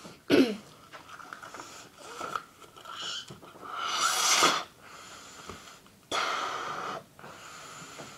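A child blowing up a rubber balloon: a series of about six breaths pushed into it, each about a second long with short pauses between, the loudest about four seconds in.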